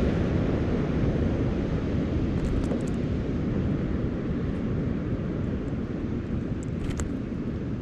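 Wind rumbling steadily on the microphone over the wash of surf, with a few light clicks about two and a half and seven seconds in.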